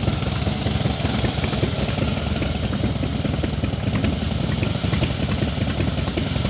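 Motorcycle engine idling steadily at a standstill.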